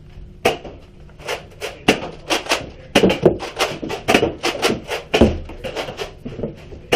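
Rapid, irregular sharp clacks and knocks, about three or four a second, starting about half a second in.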